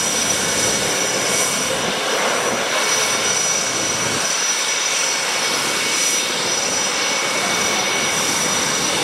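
Jet engine of a KAI T-50B trainer running on the ground: a steady loud rush with a thin high-pitched whine held on top.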